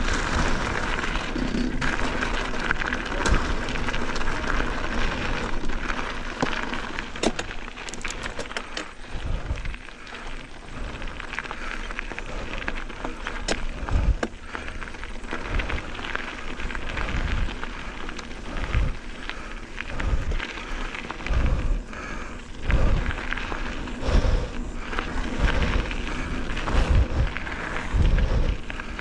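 Mountain bike riding heard through an action-camera microphone: wind rushes over the microphone, with tyre and trail noise and irregular low thumps from bumps and wind buffeting. There are a few sharp clicks and rattles from the bike.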